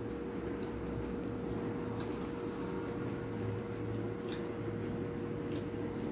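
Eating by hand: wet squishing of rice and vegetable curry being kneaded on a steel plate, and chewing, heard as short soft clicks about once a second. A steady low hum with a constant tone runs under it.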